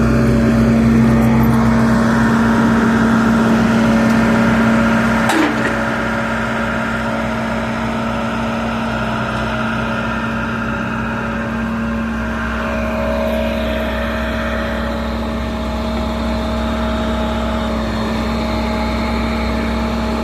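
Engine running steadily with a constant hum, powering the hydraulic system being checked for low pressure. A click comes about five seconds in, after which the engine settles slightly quieter.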